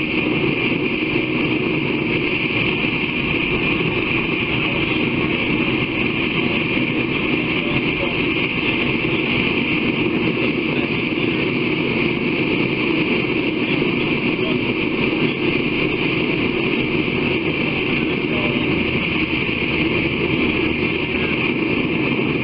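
Steady, unchanging machine noise with no pauses or changes.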